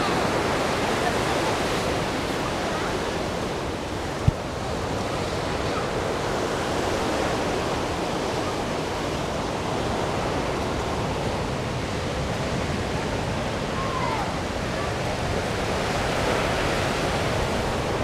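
Ocean surf: a steady rush of waves washing in, with a brief low thump about four seconds in.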